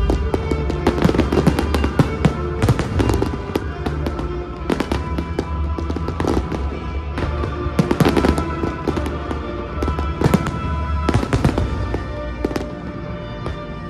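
Fireworks going off in rapid succession, many sharp bangs and crackles, over music playing along with the show.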